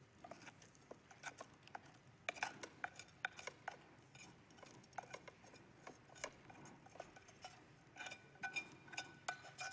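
A utensil scraping and tapping cooked rice out of a rice cooker's metal inner pot, where the rice has stuck: a string of irregular light clicks and scrapes, with the pot ringing briefly near the end.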